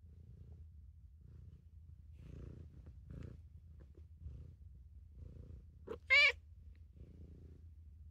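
A cat purring close up: a steady low rumble that swells and eases with each breath. About six seconds in comes one short, loud meow.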